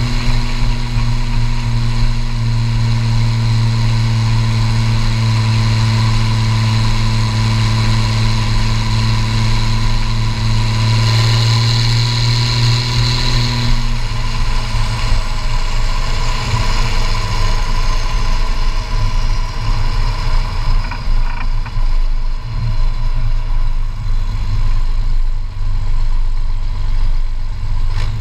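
Case IH 1455 XL tractor's straight-piped turbocharged six-cylinder diesel running hard and steady under way, with a high turbo whistle. About halfway through the throttle comes off: the engine note drops and turns uneven, and the turbo whistle falls slowly away as it spools down.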